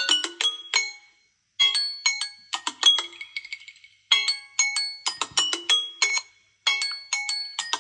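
A Samsung Galaxy phone's built-in ring melody: a short phrase of bright, struck notes, repeated about every two and a half seconds with a brief silence between repeats.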